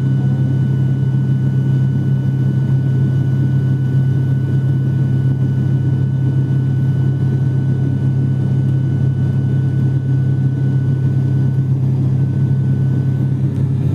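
An IndiGo airliner's steady low drone, unchanging, with a faint thin whine held on one note above it.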